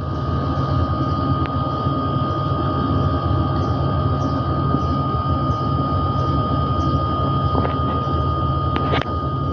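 Haier split air conditioner's outdoor unit running during R32 refrigerant charging: a steady compressor and fan drone with a thin constant whine over it. A few light clicks come near the end.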